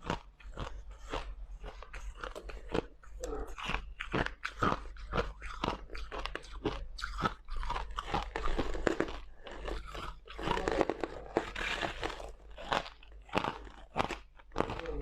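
White crushed ice being bitten and chewed, a close run of rapid, irregular crunches, several a second.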